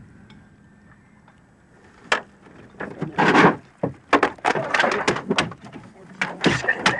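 Gilthead sea bream lifted by hand into a small boat and thrashing on the floor: a rapid, irregular run of sharp slaps and knocks, starting about two seconds in.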